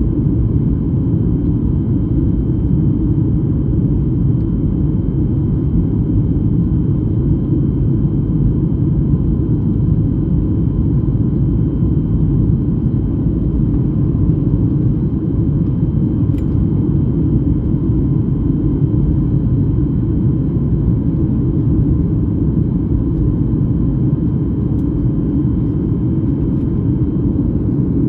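Airliner cabin noise: a steady, unchanging low drone of engines and airflow heard from a passenger seat, with a few faint steady whining tones above it.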